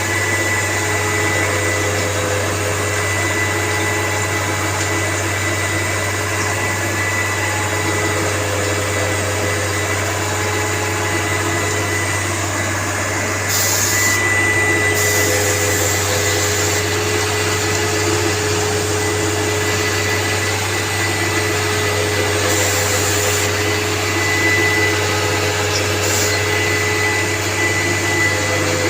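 Concrete loading into a truck mixer: the machinery runs with a steady, loud drone and a low hum. Several short hisses come in the second half.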